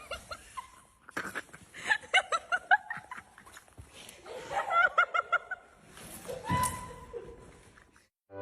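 People laughing in several bouts of quick, repeated ha-ha pulses.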